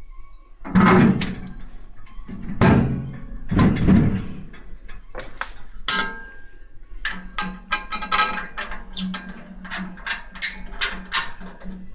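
Steel parts of a homemade wood stove being handled. There are three heavy metal clunks with a low ringing in the first few seconds, then, from about seven seconds in, a rapid run of small metallic clicks and rattles.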